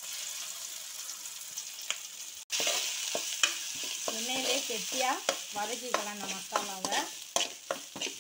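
A metal spoon stirs and scrapes ground masala paste frying in oil in a steel kadai. A steady sizzle is broken by rapid clicks and scrapes of the spoon on the pan, and it gets louder after a sudden cut about two and a half seconds in.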